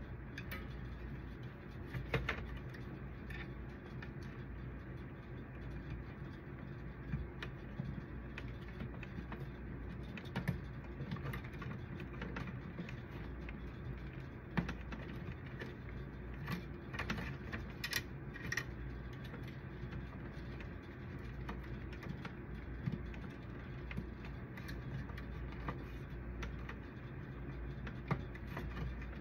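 Scattered light clicks and rattles of plastic and small metal parts being handled and fitted on a copier drum unit's frame, over a steady low hum.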